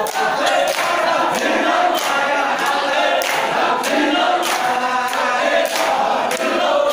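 Men's voices chanting sholawat together in a samman dance, with steady hand claps keeping time about three every two seconds.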